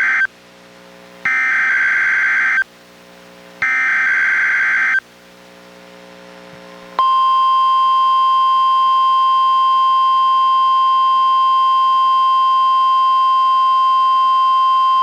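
NOAA Weather Radio's Required Weekly Test sent out by a Reecom R-1630 weather radio: the end of one SAME digital header burst and two more full bursts of warbling data tones, about a second apart. About seven seconds in, the steady 1050 Hz warning alarm tone begins and holds.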